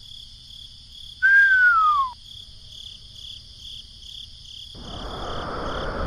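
Crickets chirping steadily at about three chirps a second. About a second in, a single loud whistle falls in pitch for about a second. Near the end a rushing rain noise sets in and grows louder.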